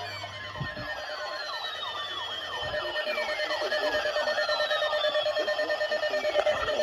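Several electronic severe-weather alert alarms sounding over one another: fast repeating falling chirps, slow siren-like downward sweeps and a steady tone, growing louder toward the end.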